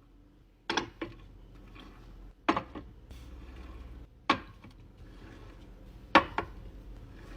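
Glass condiment bottles being set down one after another, each landing with a sharp clink or knock, about five times, some in quick pairs.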